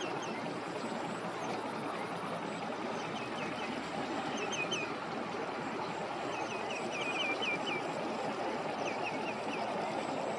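Birds chirping in short, quick runs of high calls, densest a little after the middle, over a steady rushing background noise.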